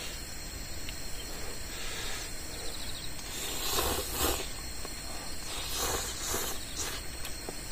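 A person slurping noodles from a bowl in two bouts, one about halfway through and one shortly before the end, over steady chirring of insects.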